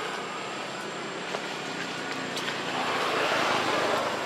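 Steady outdoor background noise with a faint high whine, swelling about three seconds in and easing off near the end.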